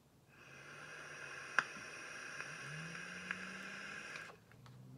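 A long draw of about four seconds on a dotMod dotAIO vape fired at 35 watts: air hissing and faintly whistling through the airflow while the coil fires, with a couple of small crackles. A quieter low hum follows near the end.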